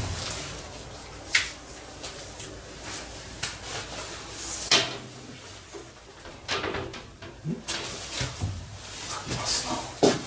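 Irregular knocks, clicks and light scrapes of an aluminium frame and its panel being handled and fitted, with the sharpest knock a little under five seconds in.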